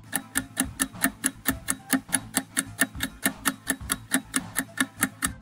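Countdown-timer ticking sound effect: an even, fast clock tick, about four or five a second, marking the answer time running out on a quiz question.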